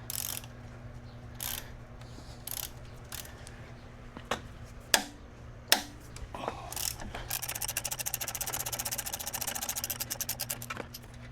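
Hand ratchet working the alternator's lower mounting bolt loose: scattered clicks and knocks, then about three and a half seconds of rapid, even ratchet clicking near the end as the bolt is spun out.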